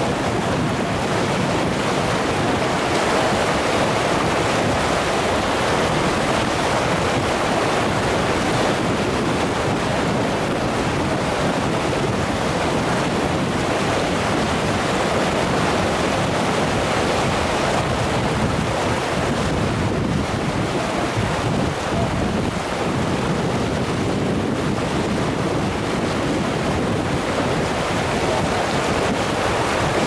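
River rapids: whitewater rushing over rocks in a steady, unbroken rush.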